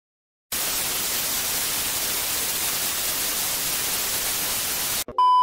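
Steady TV-style static hiss, starting about half a second in and cutting off abruptly near the end, followed straight away by a loud, steady, high test-tone beep.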